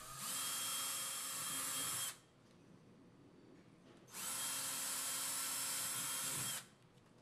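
18-volt Ryobi ONE+ cordless drill boring two pilot holes in a wall. It runs steadily for about two seconds, stops for about two seconds, then runs again for about two and a half seconds.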